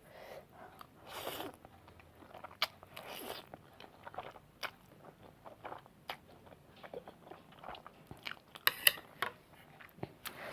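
A person eating noodles close to the microphone: chewing and biting with many short wet clicks and smacks, a few brief noisy swishes, and a cluster of sharper, louder clicks near the end.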